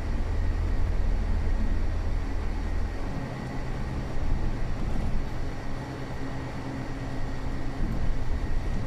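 City bus engine and drivetrain heard from inside the bus while driving: a deep steady rumble, heavier for the first three seconds and then easing off, with a faint steady high whine.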